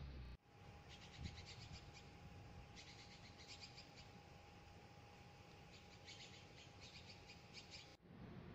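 Small birds chirping in quick runs of high, rapidly repeated notes, three spells of a second or so each, over a faint steady hum.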